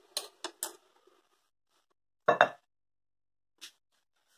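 Knife and fork clinking against a plate: three quick clinks near the start, a louder double knock about two seconds in, and one faint click near the end.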